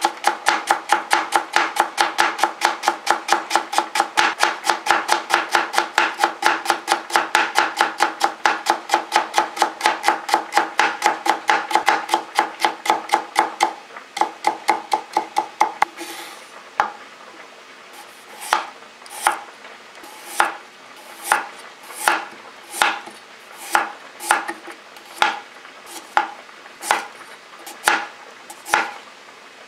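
Kitchen knife cutting carrot on a plastic cutting board: rapid, even strikes about five a second as it cuts thin julienne strips, slowing about halfway through to single cuts a little over once a second as it slices rounds.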